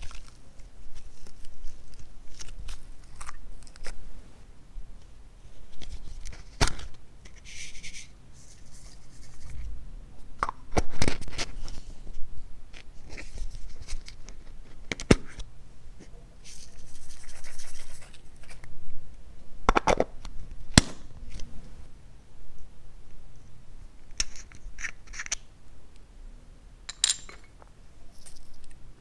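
Hands squishing and working slime, with scrapes and a few sharp clicks from small plastic makeup cases being opened and handled.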